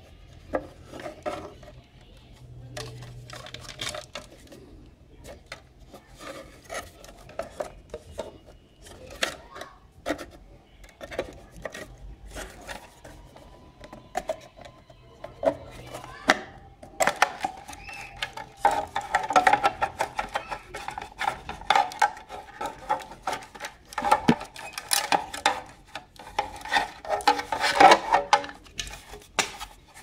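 Plastic housing of a Philips Pelican FC6050 handheld vacuum cleaner being handled and pried apart: many clicks, knocks and rubbing of hard plastic, busier and louder in the second half.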